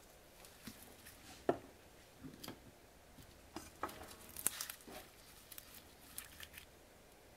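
Faint handling noises: scattered light knocks, clicks and rustles, the loudest knock about one and a half seconds in and a small cluster about halfway through.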